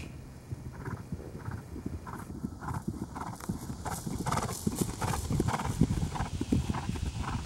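Hoofbeats of a Trakehner gelding cantering on grass, a steady rhythm of dull thuds. They grow louder as the horse passes close, about halfway through.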